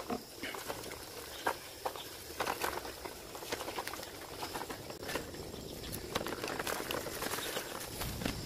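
Bicycle rolling over a rough dirt path littered with dry leaves. The wire front basket and frame make irregular rattling and clicking, and the tyres run over leaves and dirt.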